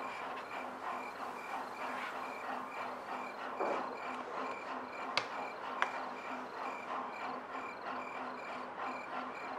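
Steady, rhythmic insect-like chirping, about three pulses a second, with two sharp clicks about half a second apart a little past the middle.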